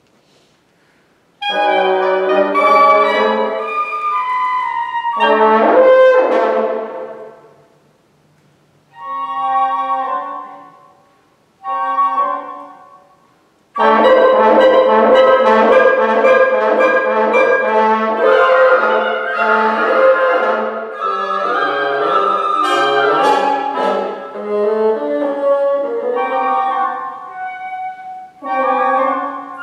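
Woodwind quintet of flute, oboe, clarinet, bassoon and French horn playing contemporary classical music live. A loud full chord enters about a second and a half in and dies away, two short separate outbursts follow, and from about halfway through the ensemble plays continuously with busy overlapping lines.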